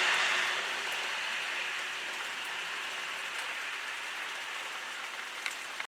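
Steady patter of heavy rain, easing a little over the first second or two, with a couple of small ticks near the end.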